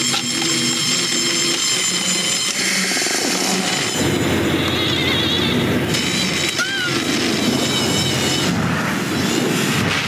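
Toy radio-controlled car's electric motor whining steadily at speed. A heavier rumble joins about four seconds in, and there is a brief rising-and-falling squeal near seven seconds.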